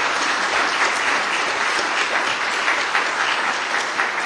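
Audience applauding, a steady round of many hands clapping to welcome a speaker to the lectern.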